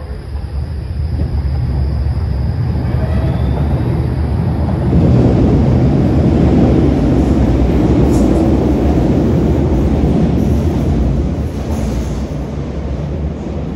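Tram departing from an underground station: the rumble of motors and wheels on rail builds as it accelerates away along the platform, is loudest for several seconds in the middle, then eases as it runs into the tunnel.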